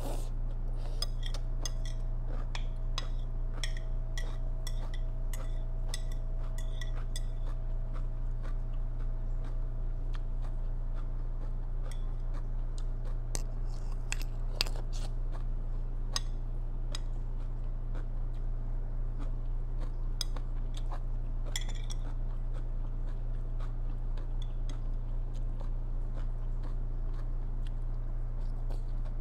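Close-up eating sounds: crisp crunching and chewing of a cucumber salad, with metal chopsticks clicking against a ceramic plate. The crunching runs steadily for the first several seconds, with one sharper clink about halfway through, all over a steady low hum.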